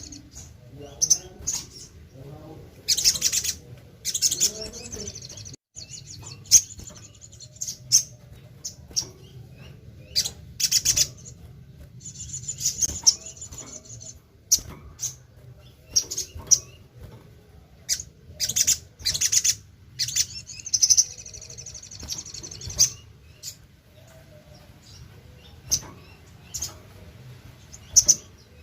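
Sogon (brown-throated sunbird) singing: short, sharp, high chirps and trilled bouts, repeated every second or so, over a faint steady low hum.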